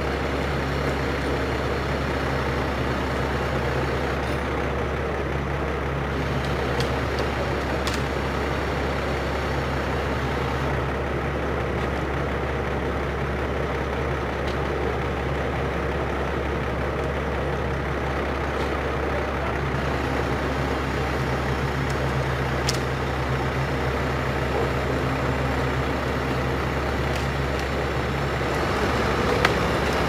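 Truck-mounted crane's engine running steadily while the boom hoists a cut section of eucalyptus tree, with a slight rise in level near the end.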